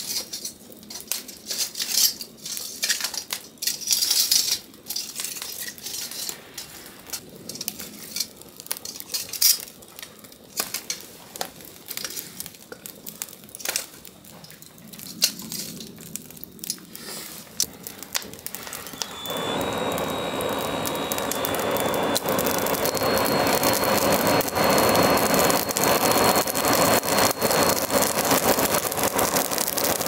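Wood fire crackling in a concrete-block hearth, with sharp clicks as metal tongs shift the burning wood. About two-thirds of the way in, a handheld blower switches on. Its steady rush of air and thin high motor whine fan the flames.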